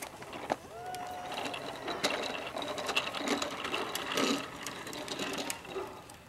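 Children's bikes and a plastic tricycle rolling on asphalt: a fast, continuous mechanical ticking and rattling that fades near the end.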